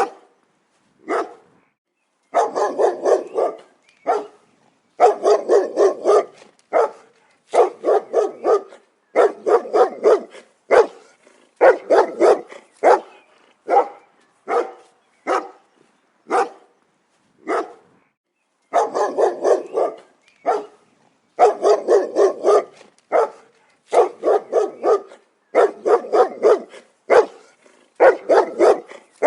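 A dog barking repeatedly: runs of several rapid barks alternating with single barks, separated by short silent gaps.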